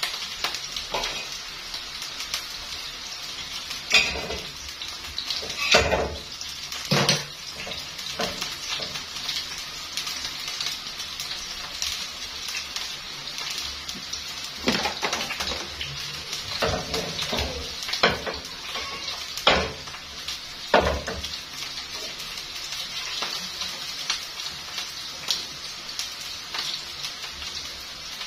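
Potato chips deep-frying in a wok of hot oil, a steady sizzle, with a metal skimmer knocking against the wok and a stainless steel steamer pot as the fries are lifted out. The knocks come a dozen or so times, in two clusters.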